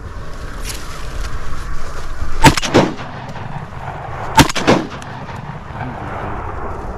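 Shotgun firing twice, about two seconds apart, each blast followed closely by a second, slightly fainter crack.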